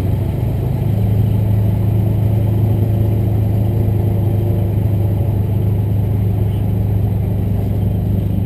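Vehicle engine running steadily with a low, even hum that rises slightly about a second in.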